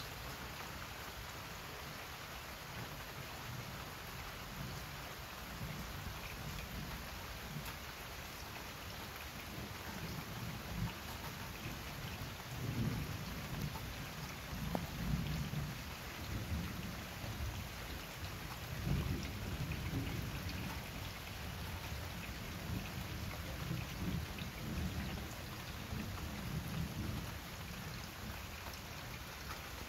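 Steady rain falling on garden leaves and a patio, with low rolling thunder that rumbles in from about ten seconds in and swells several times through the second half.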